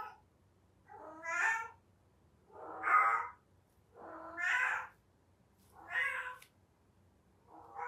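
Female cat in heat calling: a string of drawn-out, wavering yowls, about one every one and a half seconds, the heat call typical of a cat in estrus.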